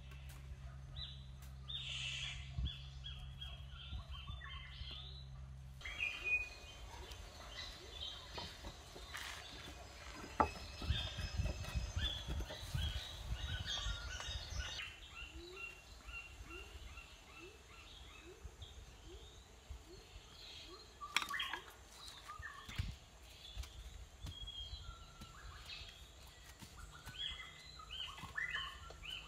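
Birds chirping and calling throughout, with a run of low thumps in the middle.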